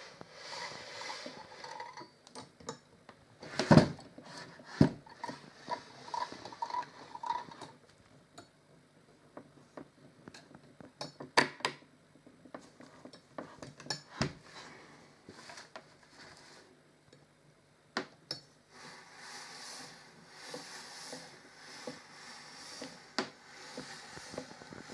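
Irregular metal clicks and clinks from the linkages under a vintage Frister & Rossmann sewing machine as its mechanism is moved, with one loud knock about four seconds in and stretches of soft rustling.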